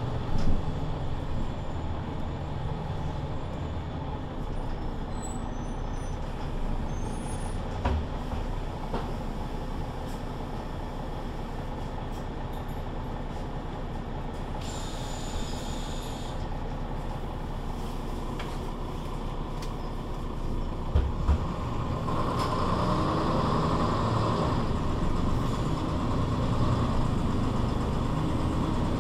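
Mercedes-Benz Citaro C2 city bus with a Voith automatic gearbox, running with a steady low drone. A short hiss comes about halfway through, then two low thumps, and from about three-quarters of the way in the running gets louder.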